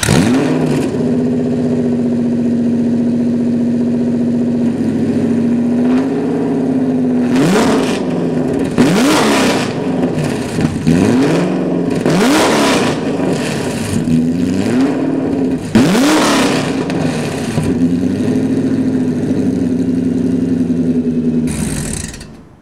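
2005 Ford GT's supercharged 5.4-litre V8 idling through its twin centre exhausts, then blipped up repeatedly: a string of short, sharp revs, each rising and falling back in pitch, before it settles back to a steady idle. The sound fades out at the very end.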